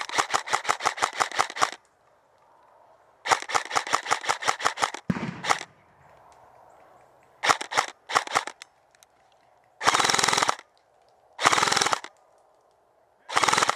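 Airsoft electric rifles firing in full-auto bursts: two long rattling bursts of about nine shots a second, then several shorter bursts, the last three packed denser.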